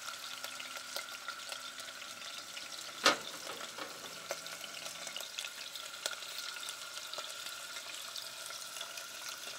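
Beef chunks sizzling and crackling in hot oil and bacon grease in an enameled Dutch oven, with many small pops: the meat is being seared brown in a batch. A single sharp knock about three seconds in.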